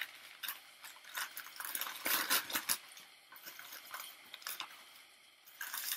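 Newspaper wrapping crinkling and rustling as plant cuttings are unwrapped by hand, in short irregular bursts, loudest about two seconds in.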